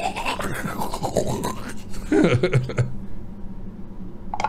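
Teeth being brushed with a toothbrush, heard close up: rapid scratchy scrubbing strokes that stop about three seconds in.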